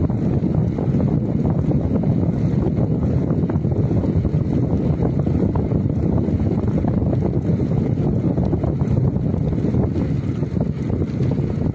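Steady rushing wind buffeting the microphone as it moves along at riding speed, a dense low rumble with no breaks.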